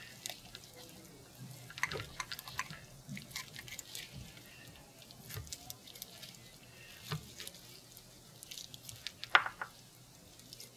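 Scissors snipping and forceps working through soft, wet heart tissue as excess fat is trimmed off a raw pig heart: scattered light clicks and soft squishing sounds.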